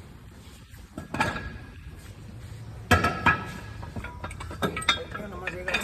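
Steel jack stands being set under a lifted truck axle and adjusted: a knock, then a loud ringing metal clank about three seconds in, followed by a run of lighter metallic clinks.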